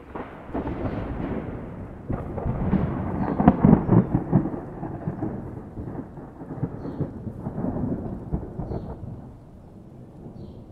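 A long peal of thunder: a rolling rumble that builds to its loudest with sharp cracks about four seconds in, swells again a few seconds later, and dies away near the end.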